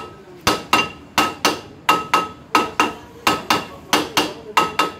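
A hammer striking the rear brake drum of an Alto 800 in quick double blows, about seven pairs, each blow leaving a short metallic ring.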